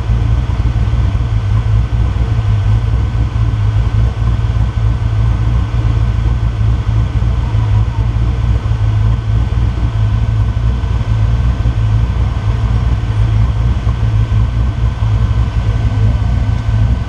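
Rock-crawler buggy's engine idling steadily, heard close up from a camera on its roll cage.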